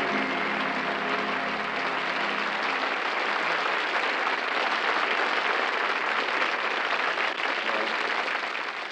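Studio audience applauding steadily. Music with sustained notes plays under it for the first two or three seconds and then stops. The applause dies away near the end.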